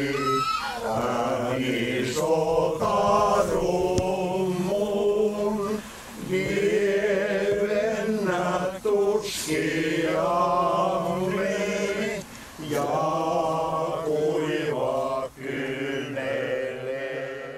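Male choir singing a slow Finnish hymn, phrase by phrase with short breaths between lines.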